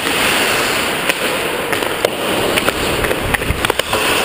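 Ice hockey play on the rink: skate blades scraping and carving on the ice, with a scatter of sharp clacks from sticks and puck that come thickest near the end.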